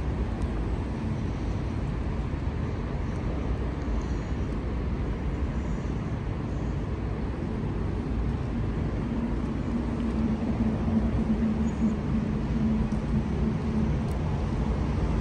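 Steady city street noise with a low rumble, beside a stationary CAF Urbos 3 tram. A steady low hum from the idling tram swells for several seconds in the second half, then eases.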